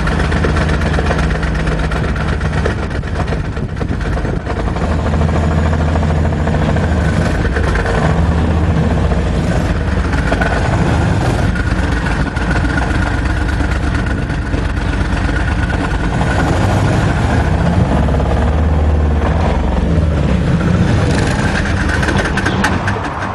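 Argo-based tracked vehicle's engine running as it drives on rubber tracks, its note rising and falling with the throttle.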